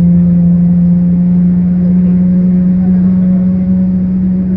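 Steady hum of a taxiing jet airliner heard inside the passenger cabin: one strong low tone with fainter higher tones over a low rumble.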